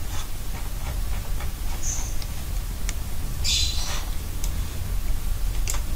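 Steady low background hum, with a few faint clicks, a short high squeak about two seconds in, and a brief high scratching sound a little past halfway.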